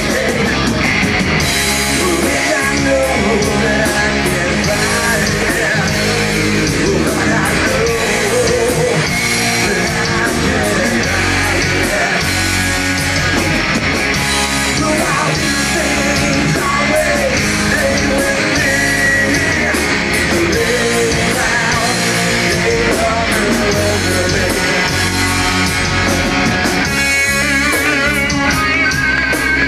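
Rock band playing live and loud, heard from the audience: distorted electric guitars, bass and a full drum kit with cymbals.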